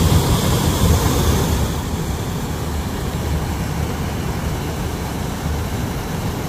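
Water pouring over a canal lock gate: a steady rushing noise with a deep rumble, a little louder in the first second or so.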